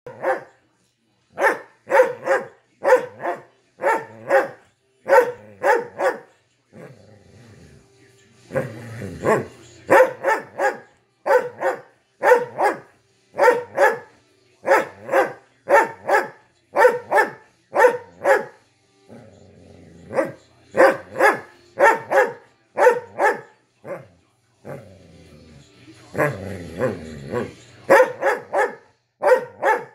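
Doberman demand barking: a long run of loud, sharp barks, mostly in quick pairs and triplets, with a few brief pauses, barking to demand attention. TV commercial audio with music plays faintly underneath.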